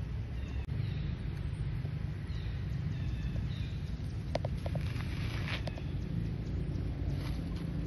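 Outdoor ambience: a steady low rumble with faint, short high chirps, and a few sharp clicks about halfway through.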